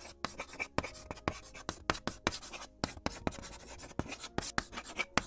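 A stick of chalk writing in quick scratching strokes, several a second.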